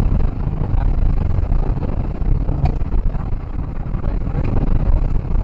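Rally car driven on a gravel and dirt track, heard from inside the cabin: a loud, dense rumble of engine and road noise with a few knocks, distorted by the loudness and bumps.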